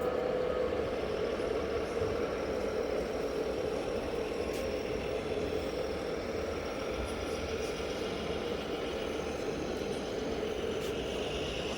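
Steady engine-like drone of a running RC model truck, holding an even mid-pitched hum.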